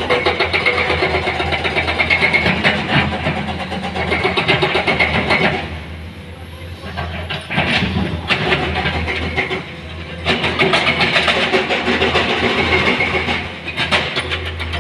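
Heavy machinery running with a dense, continuous clatter of rocks knocking against each other and against metal, as stones are loaded into a dump truck. The clatter eases off briefly about six seconds in and again around nine to ten seconds, then picks up again.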